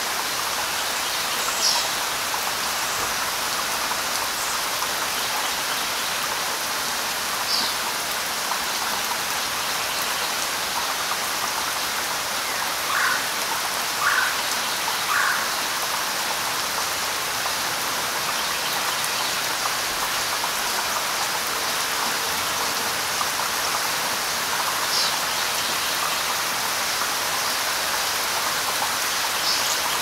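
Steady rain, an even hiss without a break. A few short, sharper sounds stand out above it, three of them about a second apart near the middle.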